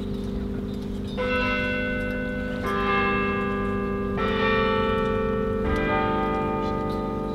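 Slow, deep bell chimes over a held drone. A new chord is struck about every second and a half, and each one rings on.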